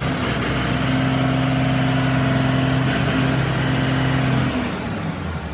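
A motor or engine running steadily with a low hum, starting abruptly and dropping away about four and a half seconds in.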